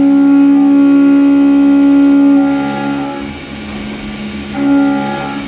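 CNC milling machine cutting metal, the milling cutter ringing with a steady whine. The whine fades into a rougher cutting noise about halfway through and briefly comes back near the end.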